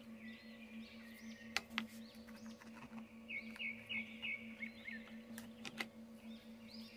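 Quiet ambient background music with bird-like chirps over a steady low hum, and a few sharp clicks, the loudest about one and a half seconds in.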